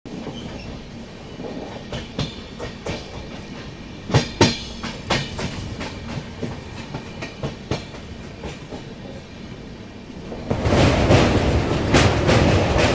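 Passenger train coach running on the rails, wheels clacking over rail joints at irregular spacing, with a pair of loud clacks about four seconds in. About ten seconds in the sound suddenly swells into a much louder, dense rumble and clatter as the train runs onto a steel truss bridge.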